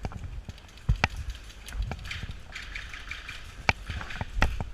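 Scattered airsoft gunfire: single sharp pops at irregular intervals, about six in all, with two close together near the end.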